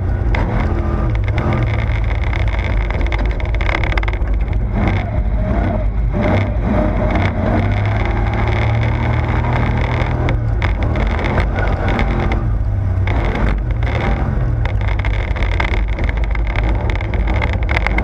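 Toyota Tundra prerunner race truck's engine running hard under racing load, its note dropping and climbing again twice as the driver lifts and gets back on the throttle.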